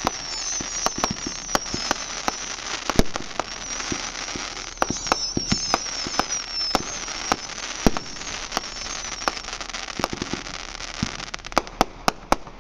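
Aerial fireworks display: many sharp bangs and crackles at irregular intervals, with a high wavering whistle through the first half and a quick run of bangs near the end.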